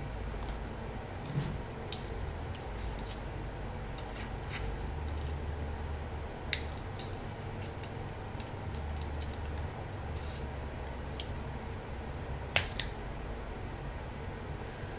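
Snow crab shells being cracked and picked apart by hand: scattered sharp cracks and clicks, the loudest near the end, over a steady low hum.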